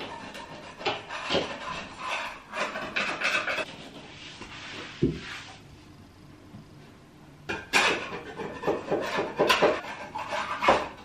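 Hand wallpaper scraper scraping stubborn bits of wallpaper backing paper off a wall in short, irregular strokes. It goes quieter for a couple of seconds around the middle, then the scrapes come louder and quicker near the end.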